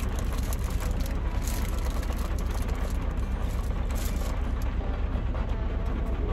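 Steady low rumble inside a parked vehicle's cab, with rain pattering on the roof and windows.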